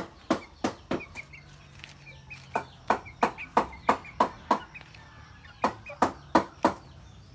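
Three runs of sharp taps, about three a second, with a chick peeping faintly between them.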